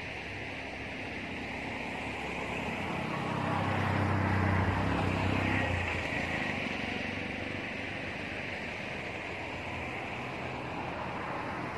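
A motor vehicle's engine hum swells, loudest about four to six seconds in, then fades, over a steady outdoor hiss.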